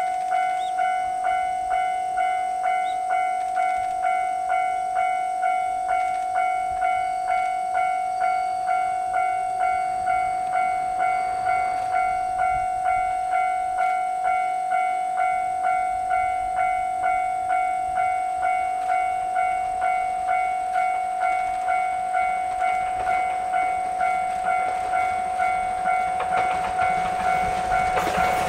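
Electronic level-crossing warning bell ringing in a steady, even rhythm of about one and a half strikes a second. Near the end the C12 steam tank locomotive's running noise grows loud as it arrives.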